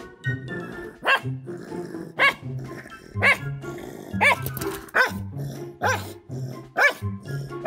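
A dog barking about seven times, roughly once a second, over background music with a steady beat.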